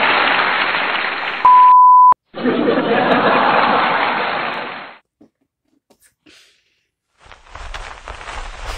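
Canned audience laughter, broken about a second and a half in by a steady censor beep lasting about half a second, then resuming and fading away. After a couple of seconds of near silence, handling noise and rustling come in as the phone is carried around.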